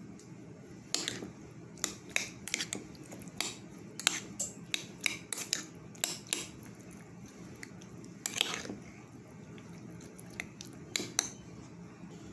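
Irregular light clinks and scrapes of spoons against cookware: a spoon in a pot of taco filling, then a metal spoon in a ceramic bowl of chunky salsa. There is a longer scrape a little past the middle.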